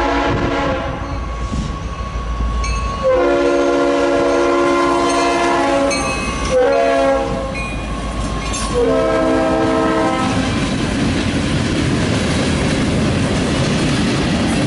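Norfolk Southern diesel locomotive's air horn sounding. The end of one blast, then a long, a short and a long blast: the standard grade-crossing signal. After the last blast the freight cars roll past with a steady clatter of wheels on the rails.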